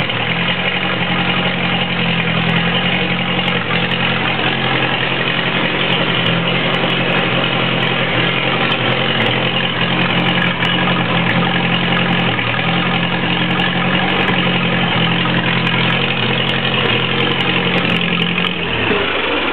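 Small Waukesha ICK engine of a rebuilt Trail Beetle crawler tractor running steadily at idle, then shut off about a second before the end, its sound dying away quickly.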